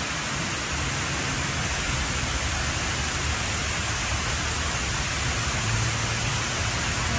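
The Hines Waterwall fountain: water sheets steadily down its tall ribbed walls and splashes into the basin at the foot, making a constant rushing noise like heavy rain.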